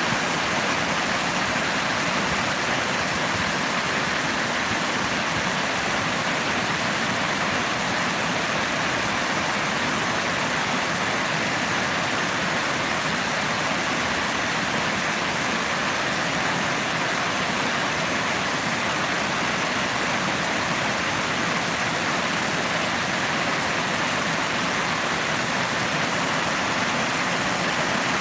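Running water rushing steadily, an even unbroken hiss of a stream or small waterfall.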